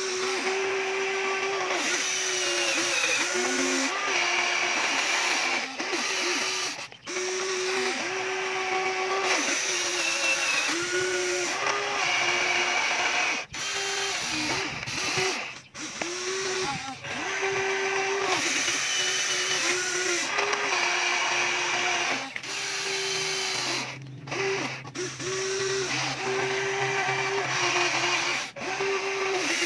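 Remote-control toy excavator's small electric motors and gearboxes whining in repeated runs of a second or two. Each run starts and stops with a brief rise and fall in pitch as the boom, arm and bucket move.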